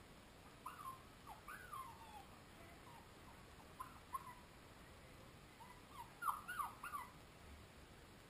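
Samoyed puppies whimpering: short, high squeaky whines that rise and fall, coming in a few clusters, the loudest run about six seconds in.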